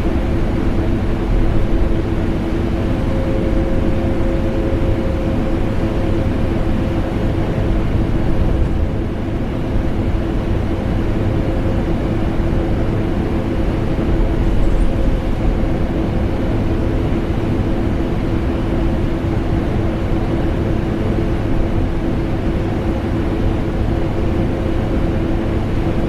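A vacuum cleaner and an air conditioner running together as a steady, unbroken drone, with a low rumble under a steady motor hum.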